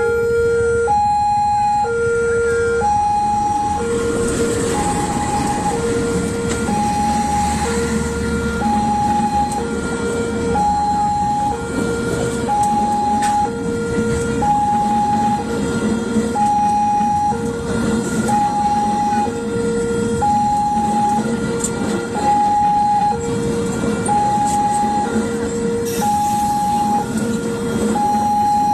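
Railway level-crossing warning alarm sounding a steady two-tone signal, alternating low and high about once a second, over the rumble of a passing train.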